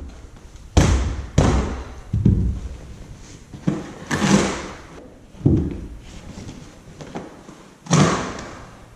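Irregular heavy thumps and knocks with a short room echo: about seven strong ones, the loudest a little past a second, around four seconds and near the end, with smaller knocks between.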